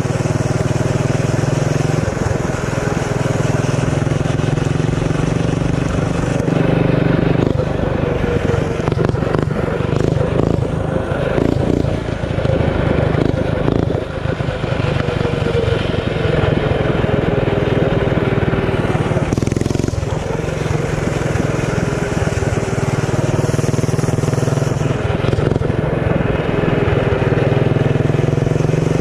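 Performance mini bike's small engine running hard under way, its pitch rising and falling repeatedly as the throttle is opened and closed.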